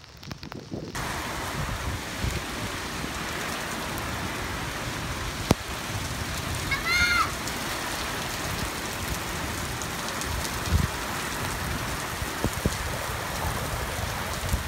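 Steady rain falling on streets and rooftops, an even hiss that comes in fully after a quieter first second.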